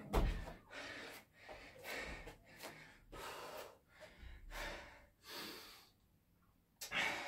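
A man breathing hard, heavy breaths in and out about once a second, winded mid-workout right after a set of push-ups. A dull thump comes right at the start, and there is a short pause before a louder breath near the end.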